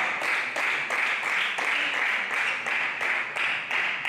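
Spectators clapping in unison at a steady rhythm of about three claps a second.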